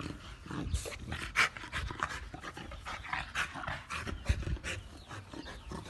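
A stocky bully-type dog panting in quick, uneven, breathy puffs.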